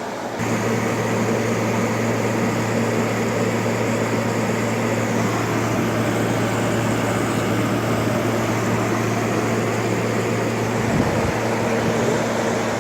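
LG 12,000 BTU window air conditioner running, a steady hum of compressor and fan with a low drone under a rush of air. It gets louder about half a second in, and there is a brief low bump near the end.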